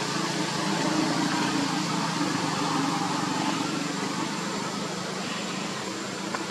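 Steady mechanical hum, like a motor running, over a wide hiss; the hum fades somewhat about halfway through, and there is a short click near the end.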